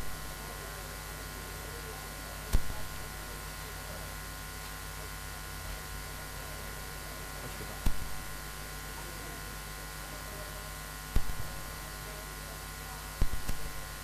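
A steady electrical hum and buzz made of several fixed tones. Sharp, short knocks break through it every few seconds, with a quick pair near the end.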